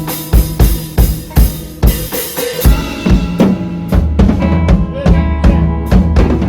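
Band playing an instrumental passage: a drum kit keeps a steady beat of bass drum and snare hits over sustained guitar and bass notes. The cymbal wash drops away about three seconds in, and the deep bass comes up stronger about a second later.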